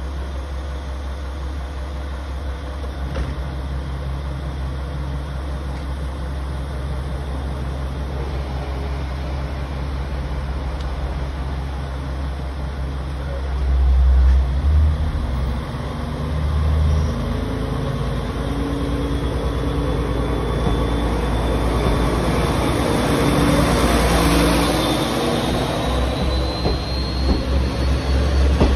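A JR Kyushu KiHa 40-series diesel railcar idling at the platform with a steady low engine hum. Its engine revs up about halfway through as it sets off, and a rising whine grows as the train gathers speed past the listener.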